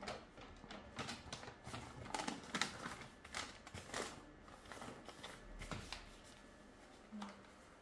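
Thin paper instruction sheet being folded and creased by hand: a run of quick rustles and crackles that thins out about six seconds in.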